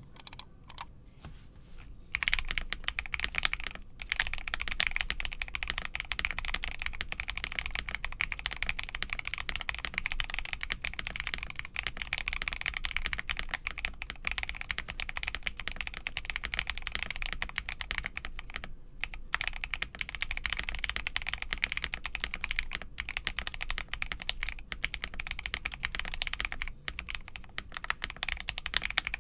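Continuous fast typing on a mechanical keyboard: an Akko PC75B Plus with lubed Akko CS Air linear switches, a polycarbonate plate and foam mods in a plastic case. The keystrokes start about two seconds in and run densely, with brief pauses a few times.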